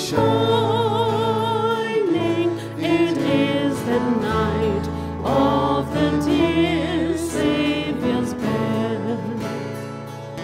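Live praise band song: voices singing a held, wavering melody over strummed acoustic guitars and drums, getting quieter near the end.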